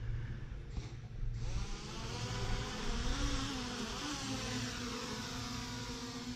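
Motorcycle engine running low, then opening up about a second in with a buzzing note that rises, dips briefly and settles into a steady pitch, with a hiss of wind or road noise behind it.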